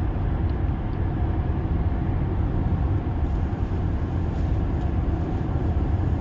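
Steady road and tyre noise inside the cabin of a moving Tesla electric car: a low, even rumble with no engine note.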